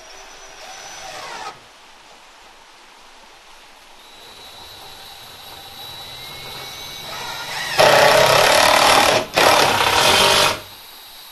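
Power tool running: a short run near the start, then a steady whine that builds. From about eight seconds in comes a longer, loud run, broken once by a brief stop.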